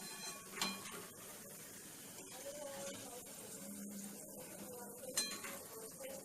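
Metal kitchen utensil clinking against a metal pan or plate while fried potatoes are handled, with two sharp ringing clinks, one near the start and one near the end.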